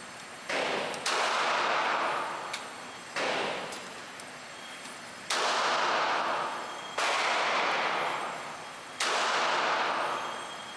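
Handgun fired six times at an unhurried pace, the shots spaced about one to two seconds apart, each ringing out for a second or more after the crack.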